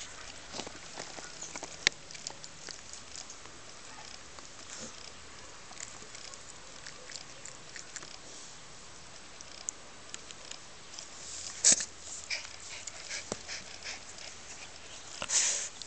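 Rottweiler puppy playing on its back on concrete and mouthing a hand: scattered light scuffs and clicks, with two louder short bursts about twelve and fifteen seconds in.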